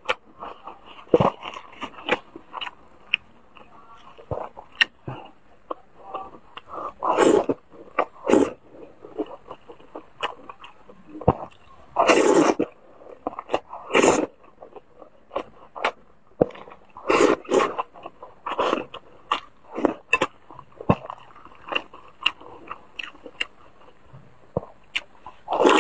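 Close-miked mukbang eating sounds: wet chewing and smacking of noodles and wontons in chili oil, with several louder slurps as mouthfuls are sucked in from the chopsticks.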